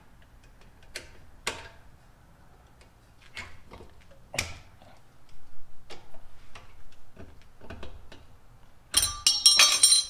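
Scattered metal clicks and knocks as the brake pads and their retaining clip are worked loose by hand in a Lexus IS350 front brake caliper. About nine seconds in comes a second-long burst of metallic rattling and clinking, the loudest part.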